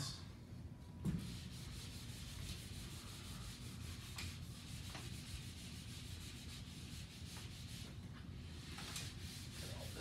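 Felt whiteboard eraser rubbing across a whiteboard in repeated wiping strokes, faint and steady, with a light knock about a second in.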